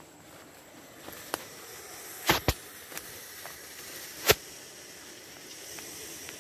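A few sharp knocks or cracks over a faint steady hiss: one about a second in, a quick pair halfway through, and the loudest a little after four seconds.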